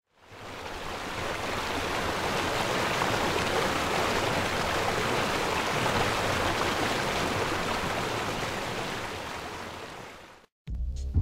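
Rushing water of a small rocky stream: a steady rush that fades in over the first second or two and fades out near the end.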